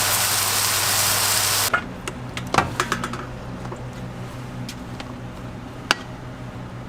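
A loud, steady cooking hiss stops abruptly about two seconds in. Then a few quick clinks and knocks of utensils against a pan, and one more sharp clink near the end, over a steady low hum.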